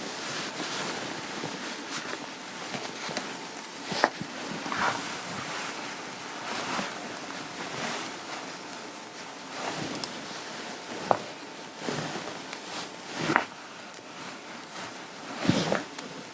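Clothing fabric rustling and rubbing as garments are handled, with scattered brief taps and knocks over a steady hiss.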